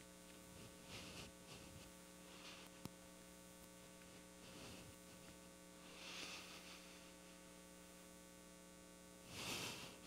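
Near silence with a steady electrical mains hum, and a few faint soft rustles, the loudest near the end.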